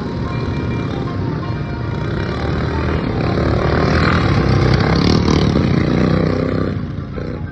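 Racing lawnmower engines running hard, growing louder as mowers pass close about four to six seconds in, then dropping away near the end.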